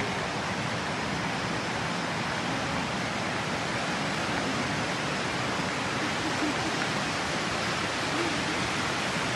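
Steady rushing water, an even, unbroken noise.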